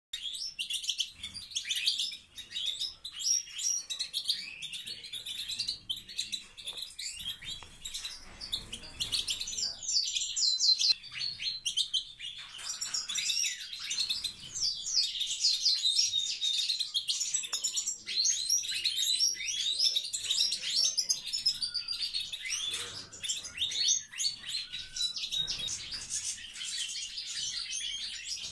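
A flock of Major goldfinches (large-race European goldfinches) twittering and chirping together, many quick high notes and short sweeping calls overlapping into a continuous chatter.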